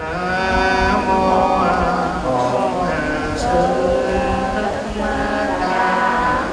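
A man's voice chanting a Buddhist chant in long, drawn-out notes that slide in pitch, in phrases with short breaks between them.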